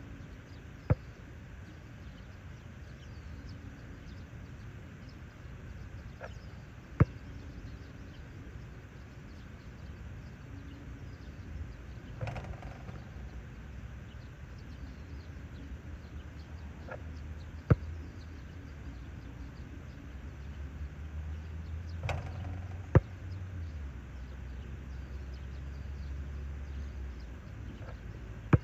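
A basketball bouncing on a hard outdoor court: single sharp bounces several seconds apart, and twice a ringing clang of the ball striking the hoop. A low rumble rises in the background in the second half.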